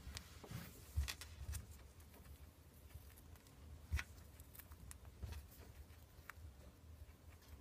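Hairless guinea pig chewing cilantro: faint, quick crunching clicks, with two soft knocks about one second and four seconds in.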